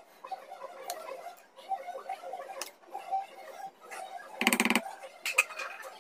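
A metal spoon clicking and scraping against a steel pot as cooked biryani rice is stirred, with several sharp ticks over a low background murmur. A brief, loud pitched sound cuts in about four and a half seconds in.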